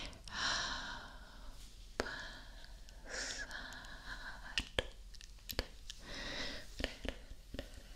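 Close-miked ASMR mouth sounds: several short breathy whispers or exhales, with sharp mouth clicks scattered between them.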